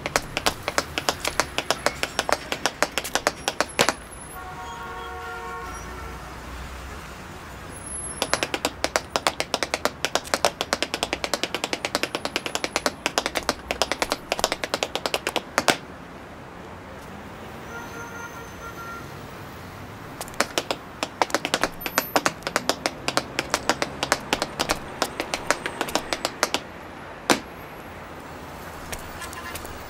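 Hard-soled leather shoes and heels clicking on stone paving: many rapid footsteps in three long runs, separated by pauses filled with a low traffic rumble.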